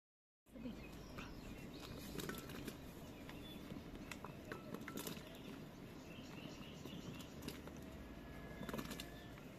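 Outdoor ambience: birds chirp now and then over a steady low background, with scattered small clicks and crackles. It starts about half a second in, after a brief silence.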